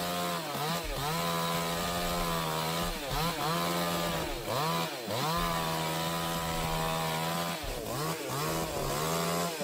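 Chainsaw running at full throttle while cutting, its pitch dipping briefly and recovering several times as it bogs in the wood.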